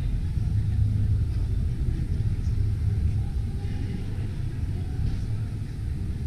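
Steady low rumble of background noise in a large indoor exhibition hall.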